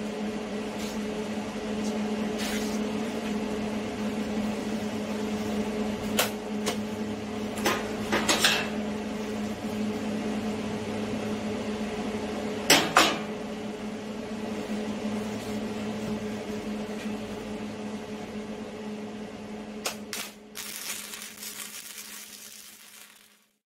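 Steady electrical hum, with a few sharp metal clanks and knocks in the middle. Near the end a MIG welder's flux-core wire arc starts crackling, then cuts off suddenly.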